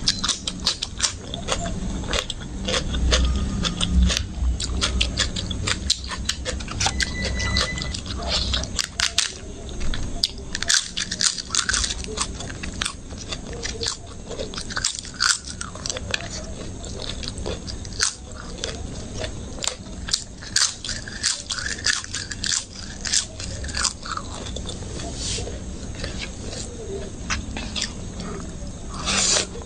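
Close-miked eating: crunchy bites of crisp masala papad and raw cucumber, with chewing between them.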